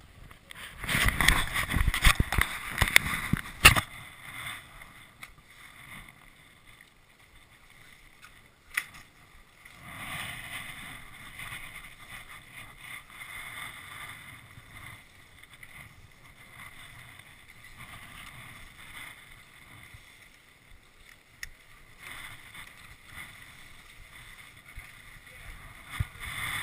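Camera handling noise: rubbing and knocks on the microphone as the camera is strapped on, loudest for the first few seconds, then quieter rustling with a sharp click about nine seconds in.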